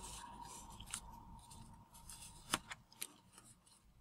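Faint rustling and crinkling of origami paper being folded and pressed flat by fingertips, with a few sharp little clicks of the paper, one about a second in and a cluster around two and a half to three seconds in.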